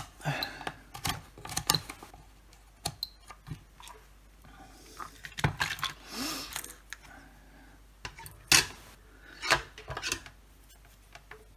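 Scattered sharp clicks, taps and light rattles of a Fluke 77 digital multimeter and its test leads being handled on a bench, with the rotary dial turned to set up a check for shorts, and a brief rustle about five to six seconds in.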